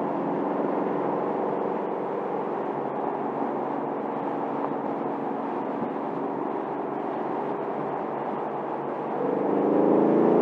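2024 Ford Mustang GT California Special's 5.0-litre V8 exhaust at a steady cruise, running evenly, then growing louder near the end as the engine pulls harder.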